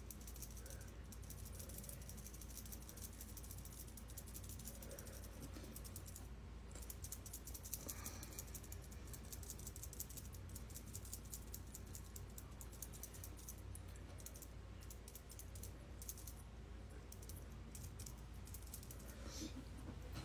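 Faint, quiet room with a steady low hum and soft, rapid clicking and tapping throughout.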